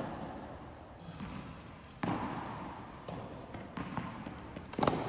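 Tennis racket and ball hits and ball bounces on an indoor hard court, echoing in the hall. There is a sharp hit right at the start, a louder one about two seconds in, and a quick run of hits and bounces near the end.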